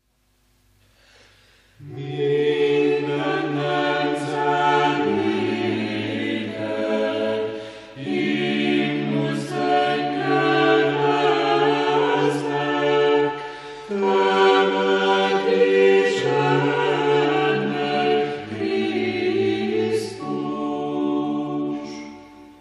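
Orthodox church choir singing unaccompanied in sustained chords, starting about two seconds in. It sings three long phrases with short breaks between them.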